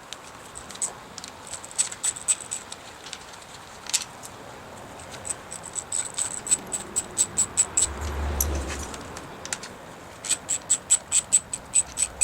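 Ratchet wrench clicking in quick runs of several clicks a second as the handlebar top-clamp bolts are backed out. A brief low rumble comes about eight seconds in.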